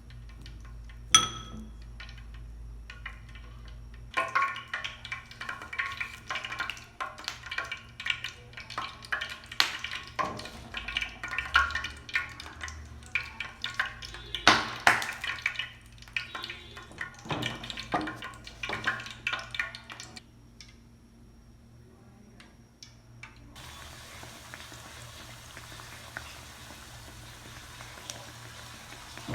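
A spoon clinking and scraping against a metal bowl as batter is stirred, with a sharp ringing ping about a second in. For the last six seconds or so, a steady hiss of oil frying.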